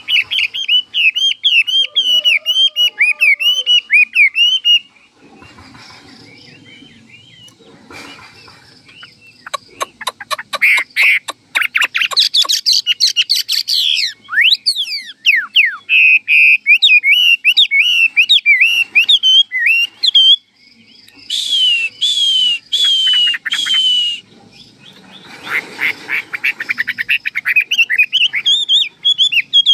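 A caged Chinese hwamei (melodious laughingthrush) singing loud, varied phrases of rapid whistled, swooping notes. The song breaks off for a few seconds about five seconds in, and about three-quarters of the way through it repeats one slurred note four times.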